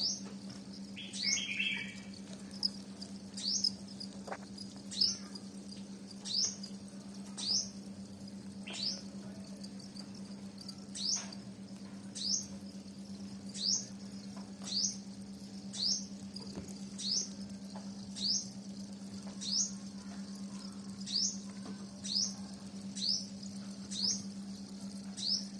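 Short, high chirps that rise in pitch, repeated about once a second, from a small animal calling, over a steady low electrical hum.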